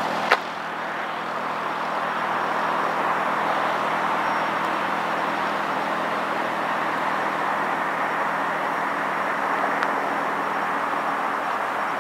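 Steady hum of distant traffic outdoors, with a faint low drone under it. A single short click comes about a third of a second in.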